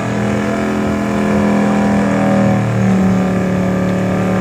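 Car engine held at steady high revs for a burnout, the tyres spinning and smoking, with a slight drop in pitch about halfway through.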